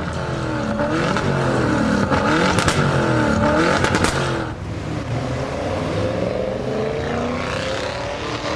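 Audi RS6 Avant engine and exhaust being revved: several quick blips up and down in the first half, then a slower, steadier rise in revs.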